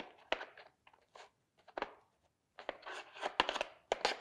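Small plastic and metal repair tools being handled in a moulded plastic tray: a string of light clicks and knocks, a few at first and then a busy cluster in the second half.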